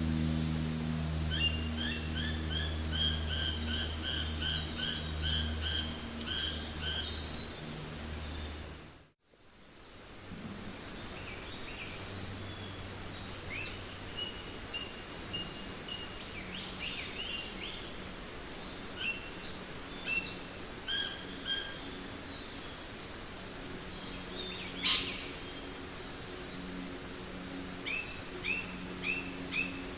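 Jungle ambience: many birds calling and chirping in quick repeated phrases over a steady background hiss. A low hum fades out, there is a brief dropout about nine seconds in, and one sharp, loud call comes near the end.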